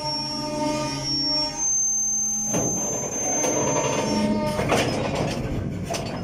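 WAG-12B electric locomotive running with a steady hum and a high whine as it eases against a freight wagon during coupling, then several metallic clanks from the coupler and buffers from about two and a half seconds in.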